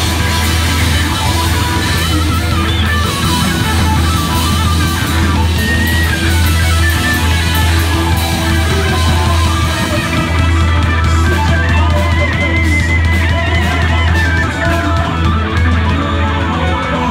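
Live rock band playing loudly: electric guitars, bass and drum kit, with a high, wavering lead line coming in about twelve seconds in.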